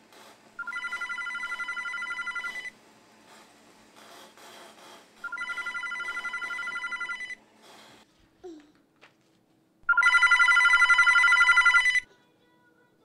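A telephone ringing with an electronic warbling trill: three rings of about two seconds each, roughly four and a half seconds apart, the third ring louder than the first two.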